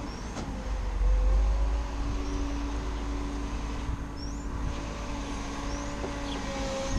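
Bucket truck's engine and hydraulic boom system running steadily with a low hum, swelling into a louder low rumble about a second in.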